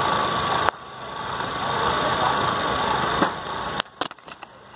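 Sharp knocks of a cricket bat striking the ball, one just under a second in and one about three seconds in, over a steady rushing background noise.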